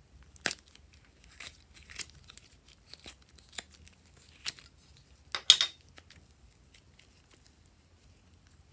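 Thin plastic mold crackling and flexing as soft clay is peeled out of it: a string of short sharp crinkles, the loudest a cluster about five and a half seconds in, then only faint ticks.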